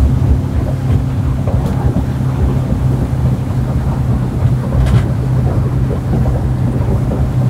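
Mercury 150 Pro XS outboard motor running steadily with the boat under way, its hum mixed with wind buffeting the microphone and rushing water.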